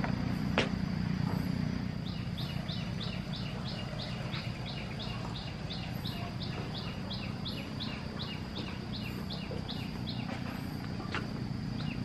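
A bird repeating a short high chirp at an even pace, about three times a second, starting about two seconds in, over a steady low rumble.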